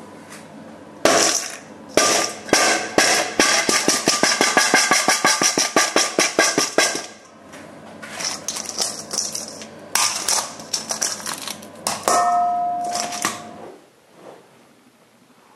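Hardened burnt-sugar caramel being cracked and chipped out of a stainless steel bowl: a fast run of sharp cracks and knocks against the metal, then a second, looser run of knocks. Near the end there is a brief ringing clang.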